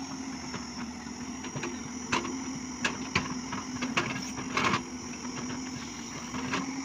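JCB JS205 tracked excavator's diesel engine running steadily with a steady high whine as the machine digs, broken by several sharp knocks of the bucket and arm working the soil.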